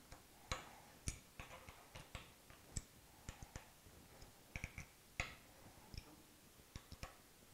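Hex key tightening the screws that hold the jaws onto a Hurricane HTC125 four-jaw woodturning chuck: faint, irregular metal clicks and ticks as the key seats and turns in the screw heads, a few of them louder, about a second and five seconds in.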